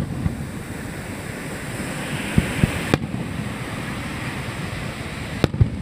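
Aerial firework shells bursting, heard as several sharp bangs: one at the start, a cluster about two and a half to three seconds in, and a pair near the end. A steady wash of surf runs underneath.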